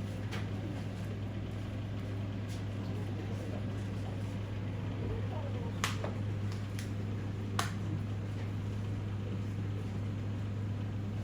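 Steady low electrical hum, as from an appliance running in the room, with a few short sharp clicks: one near the start and three a little past the middle.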